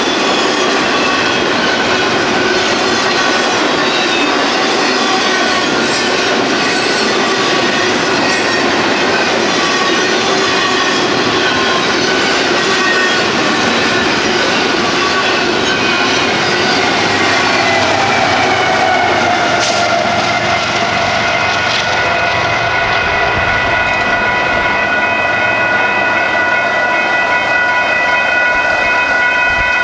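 Double-stack intermodal freight train rolling through a grade crossing, its wheels clattering over the rails, with the crossing signal bells ringing. About two-thirds of the way through the train has passed, and the bells ring on alone.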